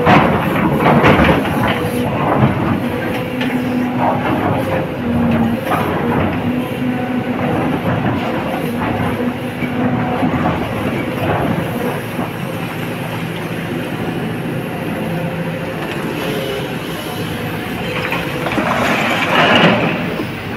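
Sany hydraulic excavator working, heard from the cab: the diesel engine running under load with a hydraulic whine that comes and goes, and clattering and scraping of the steel bucket in rock and water, loudest in the first couple of seconds. A louder burst of clatter comes near the end.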